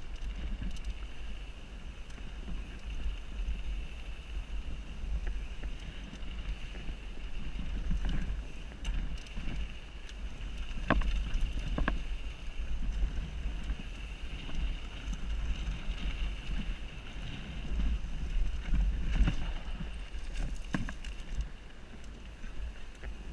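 Wind rumbling on a helmet-mounted GoPro while riding a mountain bike, with a steady high buzz and two sharp knocks about halfway through.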